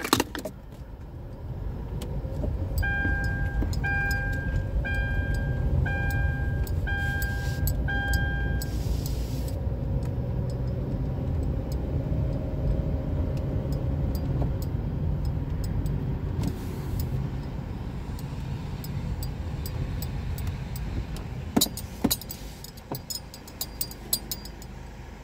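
Car cabin sound: the steady low rumble of a car's engine and tyres as it rolls slowly. Early on there is a series of six electronic beeps, one about every second. Near the end comes a run of sharp clicks.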